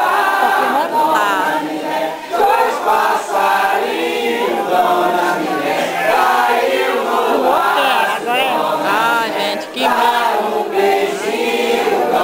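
A group of people singing together unaccompanied, many voices overlapping in a circle-dance song with no instruments.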